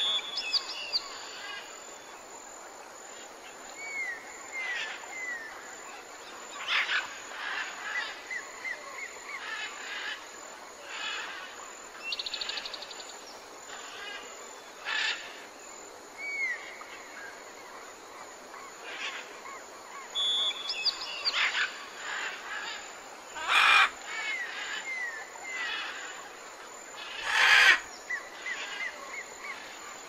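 Tropical forest birds calling over a steady hiss: several kinds mixed, with repeated short falling whistles, a brief trill, and harsh calls, the two loudest a few seconds apart late on.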